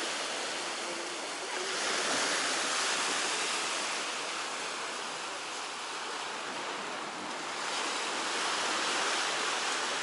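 Baltic Sea waves breaking and washing ashore: a steady rush of surf that swells about two seconds in and again near the end.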